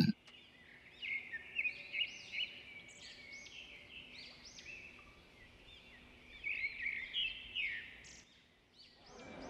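Small birds chirping in quick, repeated calls. The chirping starts about a second in and stops shortly before the end.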